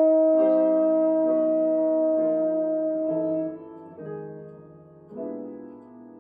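Tenor trombone holding one long sustained note over soft jazz piano chords, the trombone stopping about three and a half seconds in. The piano goes on alone with quiet chords that fade away.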